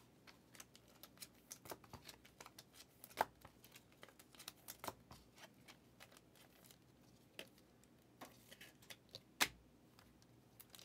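Faint handling of trading cards: scattered soft clicks, taps and rustles as cards are slid and set down, with two louder taps, one about three seconds in and one near the end.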